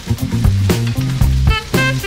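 Background music with a steady beat and repeated bass notes. Under it, chicken sizzles in hot oil in a wok as it is stirred.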